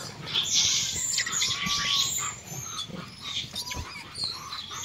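A troop of rhesus macaques calling while they feed: a harsh, noisy call burst in the first two seconds, with a few thin, arching calls and scattered small clicks.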